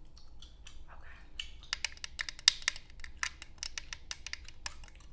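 Long nails clicking and tapping in quick, irregular strokes, sparse at first and coming thick and fast from a little under two seconds in.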